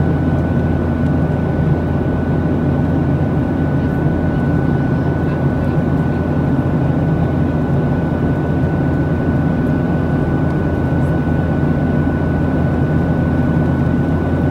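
Steady cabin noise of a jet airliner in flight: an even, low roar of the turbofan engines and airflow, with a thin, steady high tone running through it.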